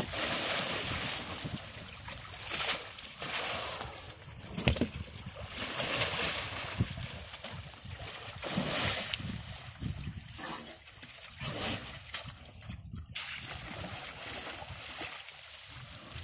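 An Asian elephant wading through a shallow muddy pool and hauling itself out onto the bank: water and mud sloshing in uneven swells, with an occasional knock.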